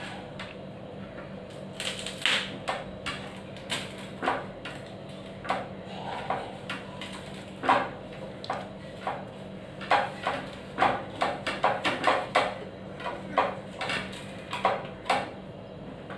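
Eating by hand from a steel thali plate and small steel bowls: irregular clicks, taps and clinks, coming thicker in the second half, over a steady low hum.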